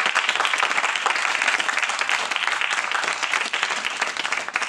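Audience applauding: dense, steady clapping from many hands, thinning slightly near the end.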